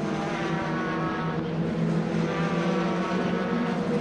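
Racing pickup trucks' engines running at race pace on the circuit, several engine notes overlapping and drifting up and down in pitch.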